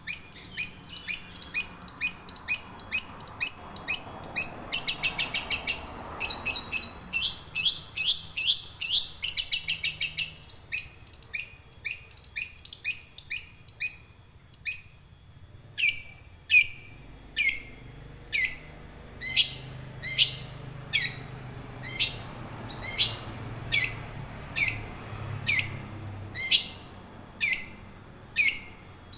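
Young long-tailed shrike (cendet) singing continuously: a long run of short, sharp high notes about one to two a second, with two quicker, rattling stretches in the first third.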